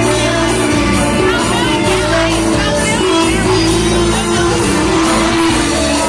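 Dance music played by a band, with a steady percussion beat of about three strokes a second under sustained instrumental notes.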